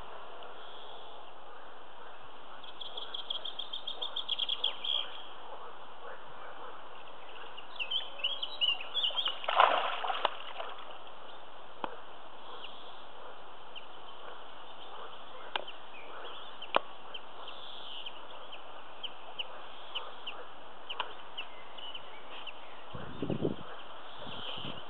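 Spawning carp splashing in the lake shallows: one loud splash about ten seconds in, with smaller splashes and clicks scattered through, over a steady hiss. A bird calls in quick repeated notes a few seconds in.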